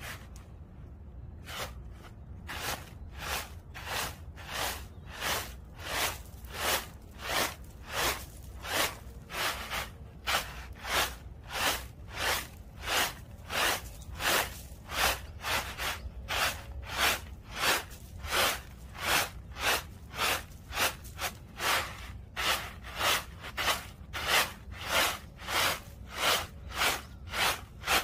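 Dried acorns and their shell fragments rattling in a woven bamboo winnowing basket as it is tossed over and over to winnow off the husks, a steady rhythm of about one and a half shakes a second that starts a second or two in and grows louder.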